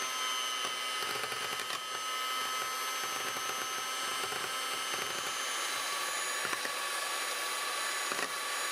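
Small electric motor running steadily, a whirring rush with a high whine over it.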